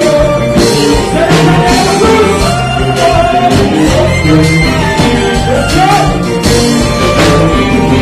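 Live band music with a male lead singer singing into a microphone over steady bass and drums with cymbal hits.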